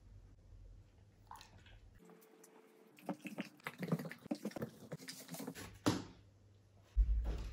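Dog chewing and crunching food in a quick run of bites, followed by a sharp knock and a low thump near the end.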